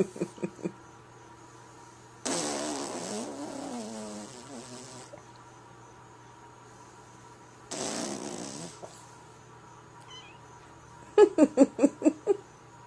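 A man blowing raspberries, buzzing his lips, in separate bursts: a short one at the start, a long wavering one of about three seconds, another short one, and a fast sputtering run near the end.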